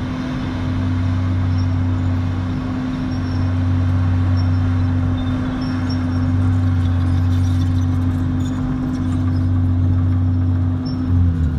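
Heavy diesel engine of a Komatsu crawler bulldozer running steadily under load, a deep even hum that dips briefly a few times.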